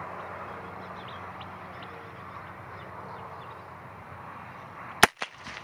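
A single shot from a Heritage Rough Rider .22 rimfire single-action revolver with a 16-inch barrel: one sharp crack about five seconds in, after several seconds of steady open-air background.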